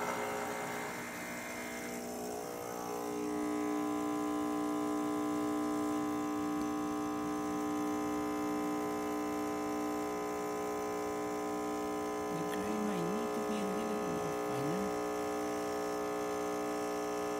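Rancilio Silvia espresso machine's vibratory pump humming steadily while pulling a shot of espresso, getting louder about three seconds in.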